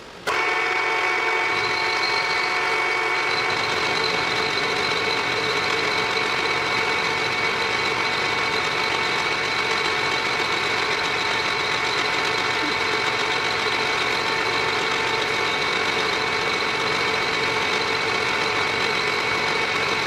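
3-in-1 lathe-mill running steadily while milling, a motor and gear whine with several fixed high tones; it begins abruptly just after the start.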